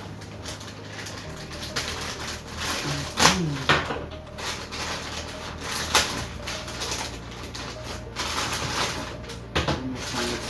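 Plastic packaging rustling and crinkling, with a few sharp clicks, as a PC power supply's cables and accessories are unpacked and handled.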